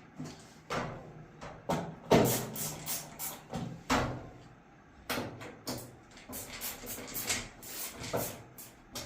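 Screwdriver tightening screws into a dryer's sheet-metal panel: irregular clicks, knocks and rattles of metal, the loudest about two seconds in.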